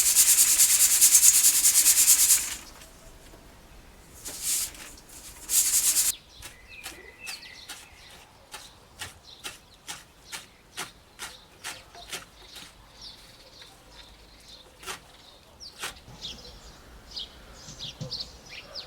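Wheat grain poured in a dense, hissing stream for about two and a half seconds, then in two short pours. After that come light, evenly spaced ticks about two a second, with small birds chirping near the end.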